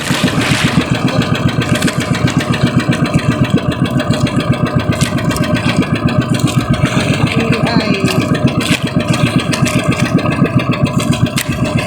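Pambot (motorized outrigger bangka) engine running steadily, with a rapid, even pulse.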